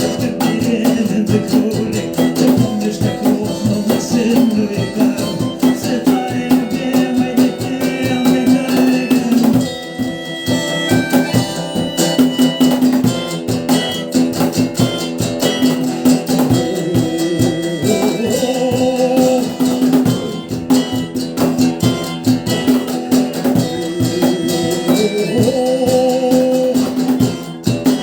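A rock band playing live through an instrumental passage of a song, guitar over drums and rattling percussion.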